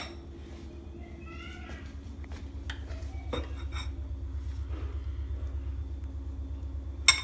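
Metal spoons clinking and scraping against a porcelain bowl of ice cream: a few separate clinks, the loudest near the end, over a steady low hum. A child's short high-pitched vocal sound comes about a second in.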